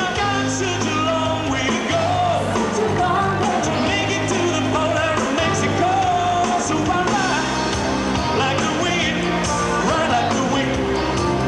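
Live rock band playing, with a male lead singer belting into a microphone over drums and a steady bass line.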